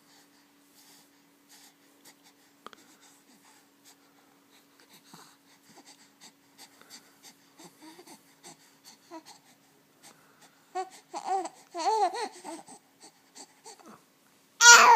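Two-month-old baby's breathing and small mouth noises, then short cooing vocalisations with rising and falling pitch about two-thirds of the way through, and a louder coo at the very end. A faint steady hum runs underneath.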